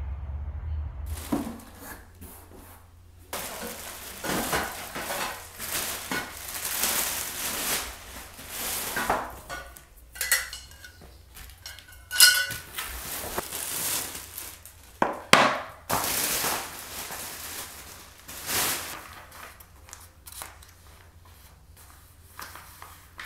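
Flat-pack IKEA VITTSJÖ shelf unit parts being unpacked and handled: rustling, with the white steel frame rails clinking and knocking against each other and a few sharper metallic hits.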